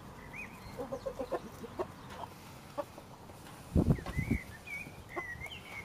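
Chickens clucking and scratching in their run, with short high chirps in the second half and a brief louder low burst about four seconds in.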